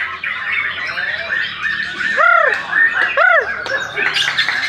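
Several white-rumped shamas singing at once, a dense run of fast chattering and trilling song. Two loud whistled notes that rise and fall stand out about two and three seconds in.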